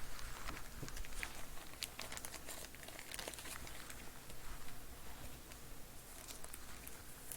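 Irregular crinkling and rustling of plastic packaging being handled, loudest in the first three and a half seconds, with another short burst near the end.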